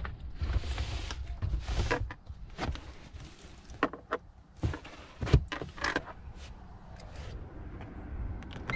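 A car door and cabin being handled: a run of irregular clicks, knocks and rustles, with one loud knock about five seconds in and a short electronic beep at the very end.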